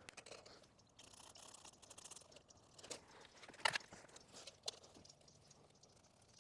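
Quiet, scattered knocks, clicks and rustling from materials being handled, with one sharper knock about three and a half seconds in.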